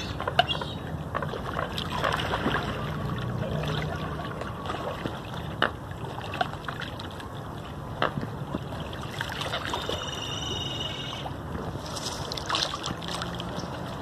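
Water sloshing and splashing from a crowd of American coots and ducks jostling in the shallows, with a few sharp taps and a brief high call about ten seconds in.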